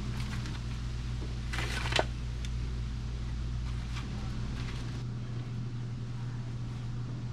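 Steady low mechanical hum, its deepest part dropping away about five seconds in, with a short rustle and click about two seconds in.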